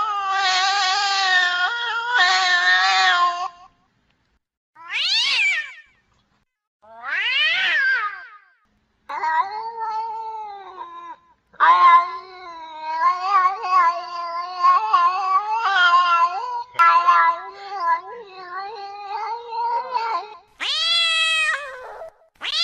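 Female cats in heat yowling: long, drawn-out, wavering caterwauls broken up by shorter, higher calls that fall in pitch, with abrupt gaps of silence between stretches.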